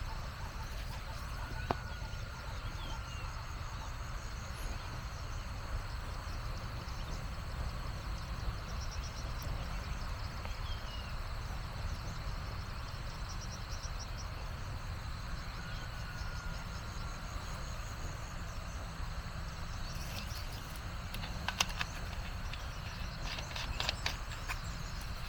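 Rural outdoor ambience: a steady high insect drone over a constant low rumble, with a few short bird chirps. Near the end comes a run of sharp crackling clicks.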